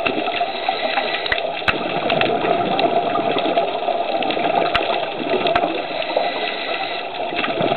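Underwater ambience picked up by a camera in its housing: a steady, muffled water rush, with a few sharp clicks scattered through it.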